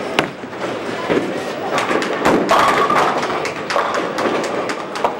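Bowling-alley sounds: a ball thuds onto the lane as it is released, then knocks and clatters of rolling balls and falling pins follow, busiest about two to three seconds in, over a background of voices.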